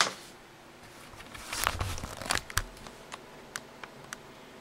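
Packaging being handled during an unboxing: a short stretch of crinkling wrapping with a dull thump, a knock, then a few sharp light clicks.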